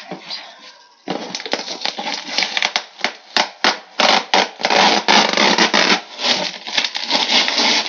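Clear adhesive plastic packing-slip pouch being peeled off a cardboard shipping box: a run of crackling, tearing rips with plastic crinkling, starting about a second in.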